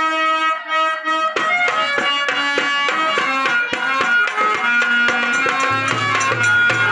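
Live Indian folk-theatre accompaniment: a harmonium playing a sustained melody, joined about a second and a half in by rhythmic tabla-style hand-drum strokes.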